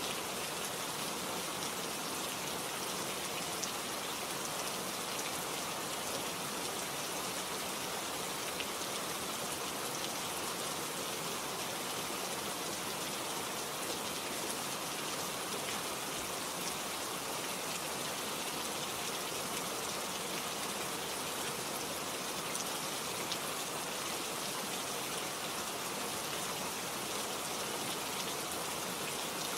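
Steady rain falling on a surface, an even hiss with scattered drop patter, no letting up.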